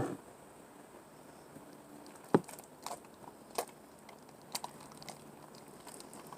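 Sparse soft clicks and crackles of sticky slime being handled and worked by hand, with one sharper knock about two and a half seconds in.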